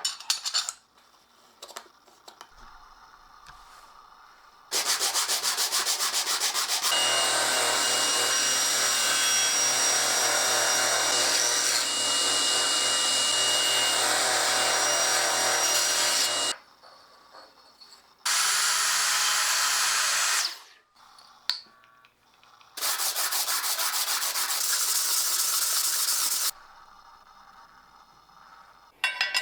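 Sanding on a wooden knife handle: three long passes of steady abrasive rasping, the first about twelve seconds long, then two shorter ones.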